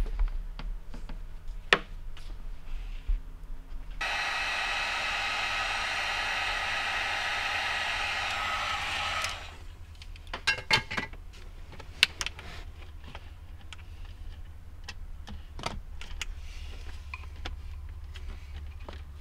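A small power tool runs steadily for about five seconds and stops abruptly. After it come scattered clicks and light knocks of hands working with wires and tools.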